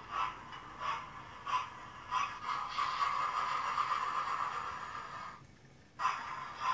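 Synthesised steam-locomotive chuffs from the Hornby TTS sound decoder in a model LNER P2 2-8-2, played through the model's speaker, about one chuff every two-thirds of a second. In the middle the chuffs merge into a steady hiss for about three seconds, which cuts out briefly before the chuffing resumes a little faster near the end.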